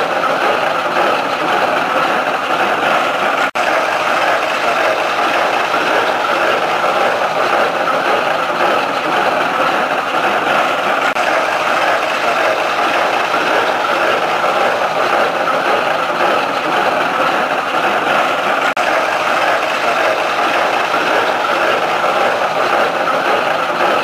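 Tractor-driven pick-up hay baler running steadily: the tractor engine under a continuous mechanical clatter of the baler's moving parts.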